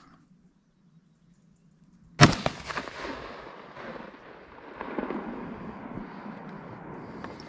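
A single rifle shot about two seconds in, sharp and loud, with an echo that dies away over about a second. After it comes a steady low rustle.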